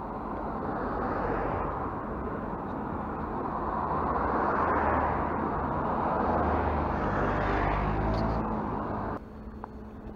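Road traffic passing close by: car engine and tyre noise swelling and fading, loudest around the middle. It cuts off suddenly near the end.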